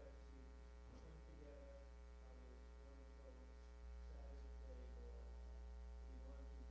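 Near silence filled by a steady electrical mains hum with a thin buzz of overtones above it, the hum stepping up a little in level about four seconds in.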